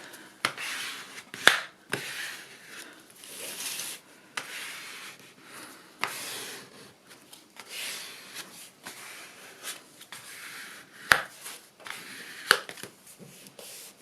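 Paper being rubbed and smoothed down onto a glued MDF craft tag, an irregular scratchy rubbing, with three sharp knocks of things set down on the table, the loudest two near the end.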